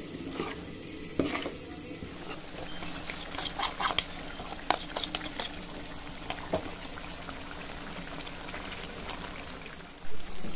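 Mutton curry frying and sizzling in a steel pan as it is stirred, with a utensil clinking and scraping now and then and a louder clatter of the spatula against the pan near the end.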